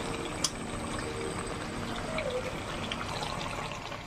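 Chicken curry bubbling and hissing steadily as it simmers in a wok, with one light click about half a second in.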